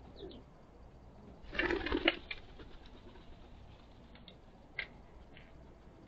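Small birds giving a few faint, sharp chips, with one brief loud noisy burst about a second and a half in lasting about half a second.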